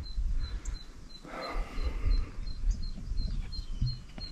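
Outdoor wind rumbling on the microphone, with a steady train of short high-pitched chirps repeating evenly about three times a second.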